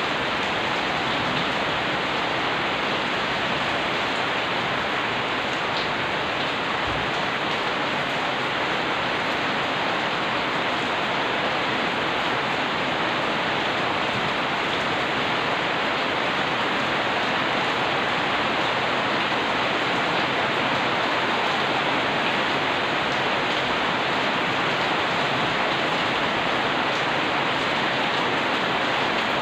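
Steady rain falling on the wet street and surfaces outside: an even, unbroken hiss that holds the same level throughout.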